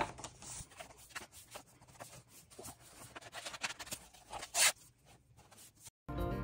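Glossy magazine pages being turned and handled by hand: soft paper rustles and small ticks, with one louder page swish about four and a half seconds in. The sound cuts out abruptly near the end.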